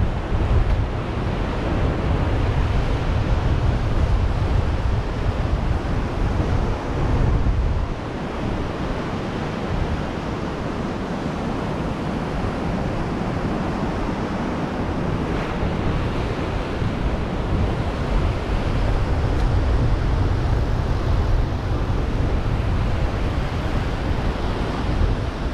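Ocean surf washing onto a beach, a steady rushing hiss, with wind buffeting the microphone in a low rumble that eases about eight seconds in.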